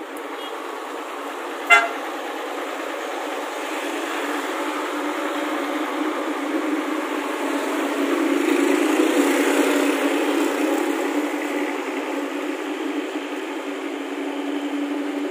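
A short vehicle horn toot about two seconds in, then a Luragung bus's engine and exhaust drone swelling as it passes, loudest around the middle. This is the low, snoring exhaust note typical of Luragung buses from Kuningan.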